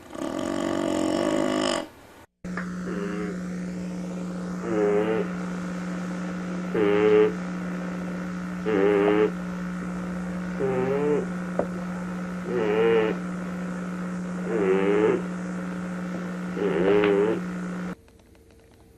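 A dog snoring in a regular rhythm, one wavering, rasping snore about every two seconds, over a steady low hum. A louder pitched sound fills the first two seconds and ends in an abrupt cut before the snoring begins.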